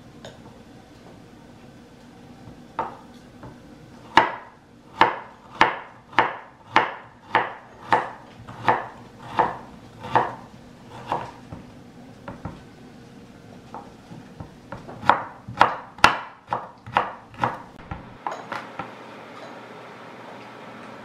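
Chinese cleaver chopping carrot on a wooden cutting board: a steady run of knocks about one and a half a second, then a quicker run of chops later on.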